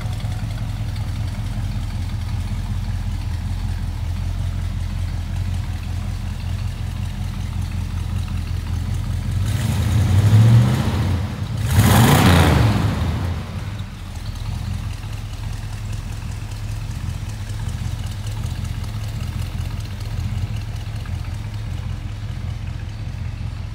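1969 Chevrolet C10 pickup's engine idling steadily, revved twice in quick succession about ten and twelve seconds in, each rev rising and then falling back to idle.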